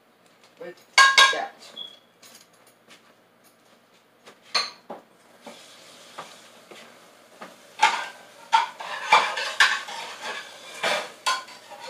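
Kitchen clatter of dishes and metal utensils: scattered clinks and clanks, the loudest a sharp clank about a second in, and a busy run of them in the last few seconds. A steady hiss sits under them from about halfway through.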